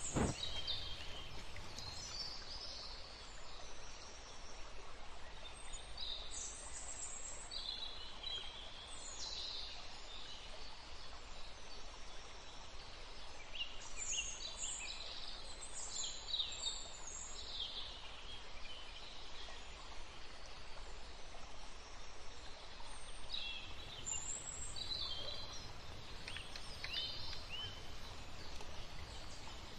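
Small birds chirping on and off in clusters of short high calls over a steady background hiss of outdoor noise, with one sharp click right at the start.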